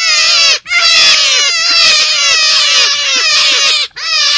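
Forest rabbit calling: a fast, loud run of short high cries, each sliding downward in pitch, about five a second, broken by two brief pauses, about half a second in and near the end.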